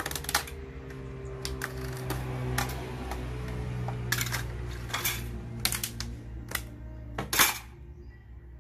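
Clicks and scrapes of a cutter knife and metal square on a PVC ceiling panel as it is marked and cut, with one louder clack near the end. Background music runs underneath.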